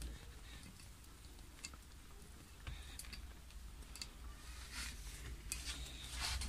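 Faint, scattered small clicks and taps of fingers and a plastic seal against a glass bottle neck as the seal is pressed into place, over a low hum.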